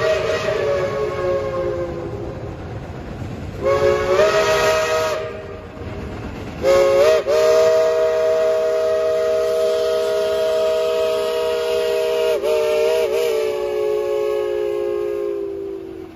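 Chime steam whistle of a Shay geared steam locomotive blowing for a road crossing: a blast fading out, a shorter blast about four seconds in, then a long blast held for about nine seconds that wavers twice and sags in pitch as it ends. The low rumble of the passing train runs underneath.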